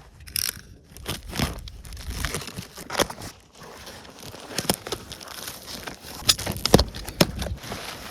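Toy packaging being handled and opened: irregular crinkling and rustling with scattered clicks and knocks.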